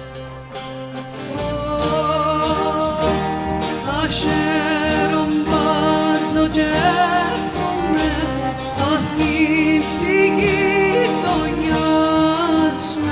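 Live Greek Cypriot folk music: a viola playing an ornamented melody over laouto (Cypriot lute) and bass, with a voice singing. The playing is quieter for the first second and a half, then the full ensemble swells in.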